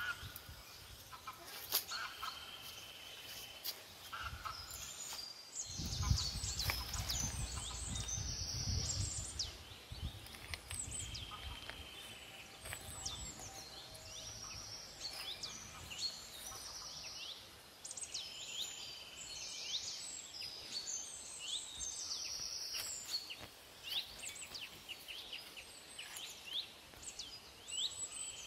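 Birds chirping and calling over and over, short high notes, some in quick repeated runs. A low rumble comes in about six seconds in and fades about four seconds later.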